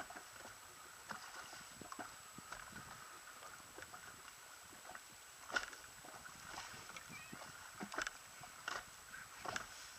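Small waves slapping against the hull of a drifting inflatable boat, with irregular clicks and knocks, the loudest a little past halfway and near the end.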